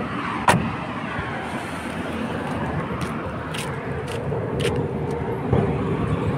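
Steady outdoor traffic noise, with one sharp click about half a second in and a few lighter clicks later on.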